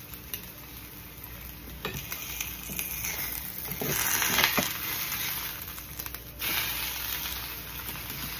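Two eggs sizzling as they fry in a small non-stick skillet, with a spatula scraping and knocking against the pan as it works under eggs that are sticking. The sizzle swells about four seconds in.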